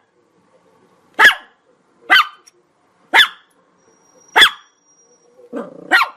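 Chihuahua barking: five sharp, high-pitched barks about a second apart, with a short, lower sound just before the last bark.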